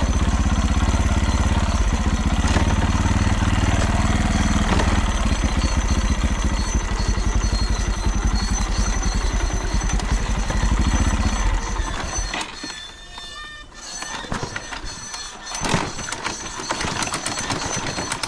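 Engine running with a fast, even pulse and an unexplained rattle the owner is trying to trace, then shut off about twelve seconds in, leaving quieter clattering.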